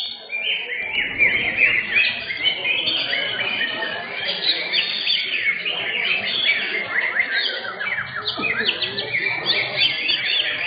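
Cucak hijau (greater green leafbird) songbirds singing continuously: dense, overlapping rapid chirps and whistles.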